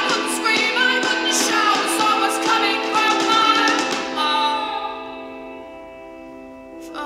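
A background song: a singing voice over instruments. About four seconds in, the voice drops out and the music thins to quieter held chords. Near the end it picks up again with a sharp onset.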